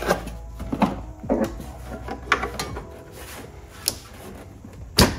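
Plastic air box and intake duct being pressed and seated back onto the engine by hand: a series of short plastic knocks and clacks, about six in all, the loudest near the end.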